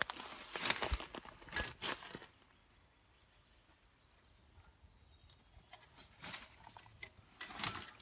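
Dry twigs, brush and pine needles rustling and crackling as a person pushes through them. It stops about two seconds in and goes quiet, with two more brief rustles near the end.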